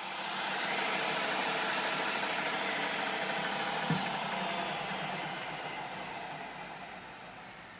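Wood router used as a tool post grinder, its motor running with a steady high-speed whine and air hiss while its small grinding stone works the lathe chuck jaws. A single brief knock about four seconds in, and the sound fades off gradually over the last few seconds.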